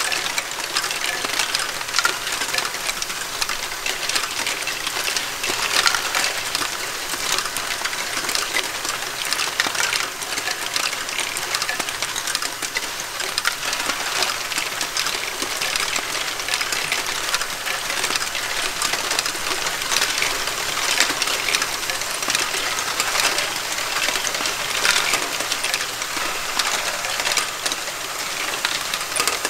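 A Lego Great Ball Contraption loop running, with dozens of small plastic balls clattering and tapping without let-up over the modules' pegged ramps, lifts and tracks.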